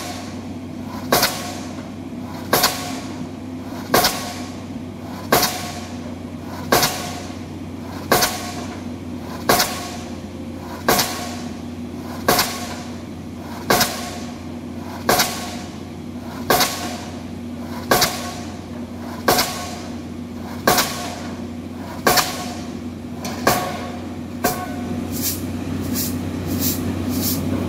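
Pile-driving hammer on a crane-mounted leader striking the top of a precast concrete pile, one sharp blow about every 1.4 s over a steady engine hum. Over the last three seconds the blows come quicker and lighter, about two a second.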